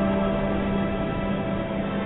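Slow ambient drone music of layered, sustained tones over a deep low note that fades out near the end.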